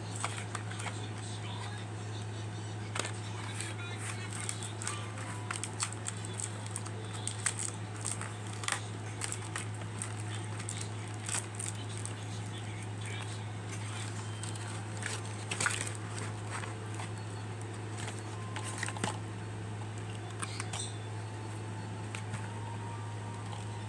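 Scattered clicks and crackles of a Bop It Classic toy and its plastic packaging being handled during unboxing, over a steady low hum.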